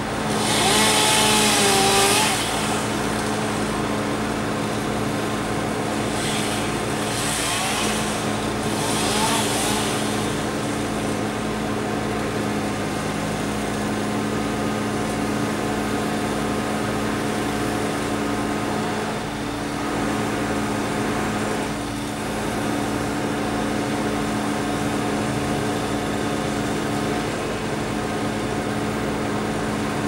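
A steady, low engine drone from the idling bucket truck and chipper. Cars pass on the road over it: the loudest one at the start, then more around six to ten seconds in.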